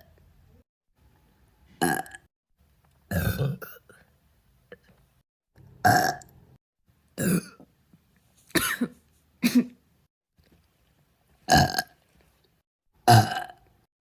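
A series of about eight short belches from young women, one after another with brief silent gaps between them.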